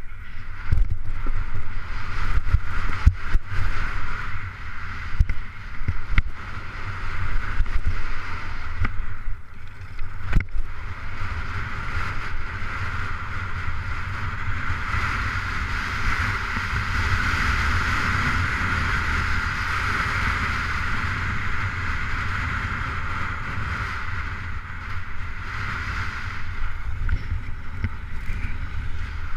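Wind rushing over the microphone of a skier going fast downhill, with skis scraping and hissing over the snow. Sharp knocks and clatter come in the first ten seconds, and then a steadier scraping hiss as the skis run over a groomed slope.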